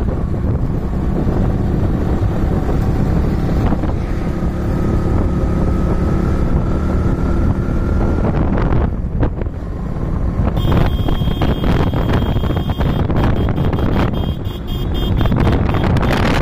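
Vehicle driving along a road: steady engine and road rumble with wind buffeting the microphone. About ten seconds in, a steady high-pitched tone with a rapid buzz joins it.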